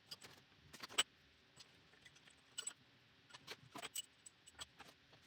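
Scattered faint metallic clicks and clinks from cylinder-head bolts and washers being handled, the sharpest about a second in and a quicker run of them near the end.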